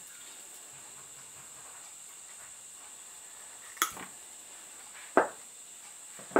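Small hand tools and parts handled on a wooden workbench: two short sharp clicks about a second and a half apart in the second half, over a faint steady high-pitched hiss.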